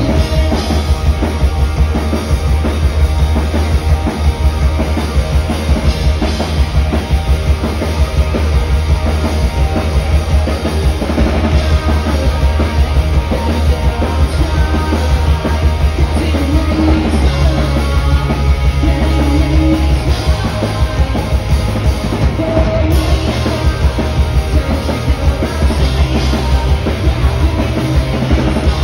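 Live rock band playing loudly: a full drum kit with a steady kick drum driving the beat, over bass and electric guitars.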